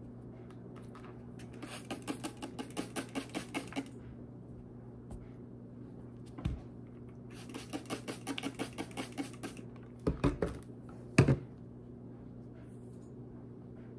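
Plastic trigger spray bottle pumped in quick succession, two runs of about ten rapid squirts misting water onto scored clay. A few dull thumps follow near the end, the loudest one just after them, as the clay pieces are handled on the table.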